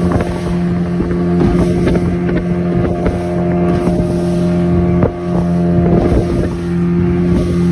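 Small motorboat's engine running steadily at speed, a constant drone, with water splashing and slapping against the hull as the bow cuts through the waves.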